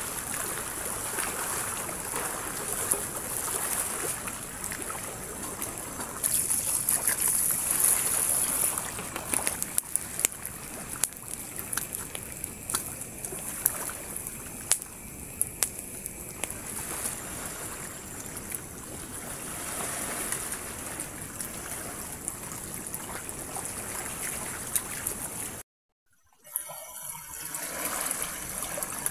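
Campfire crackling, with scattered sharp pops over a steady hiss; the sound drops out for about a second near the end.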